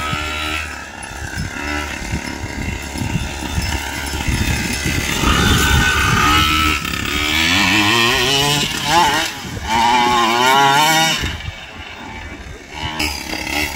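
Two-stroke gasoline engine of a 1/5-scale Primal RC Raminator monster truck running as it drives, revving up and down several times in the middle, then dropping back near the end.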